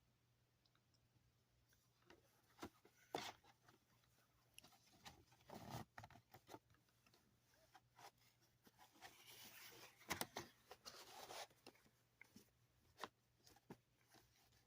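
A DVD case and its packaging being handled and opened: faint crinkling, rustling and tearing with scattered sharp clicks. The noise comes in stretches, loudest about three seconds in and again around ten seconds in.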